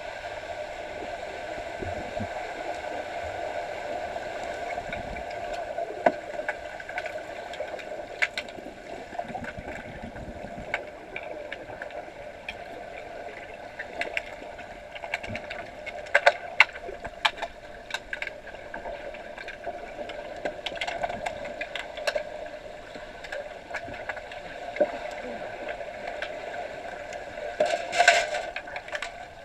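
Underwater sound in a pool: a steady hum with sharp clicks and knocks from underwater hockey sticks striking the puck and the pool floor. The clicks come in flurries, thickest in the middle and in a loud burst near the end.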